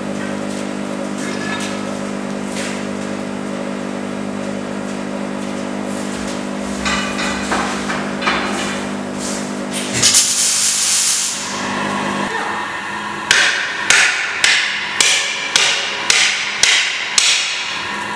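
Steady hum, then eight evenly spaced hammer blows on hot steel at a forge, about two a second, each ringing briefly.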